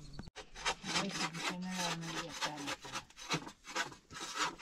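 Rapid, repeated scraping or rasping strokes, several a second, starting abruptly about a third of a second in.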